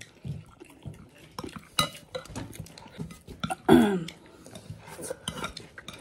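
A spoon scraping and clinking against a ceramic plate as mouthfuls of biryani are scooped up, in scattered sharp clicks. About two-thirds of the way in there is a louder moment with a short vocal sound from the eater.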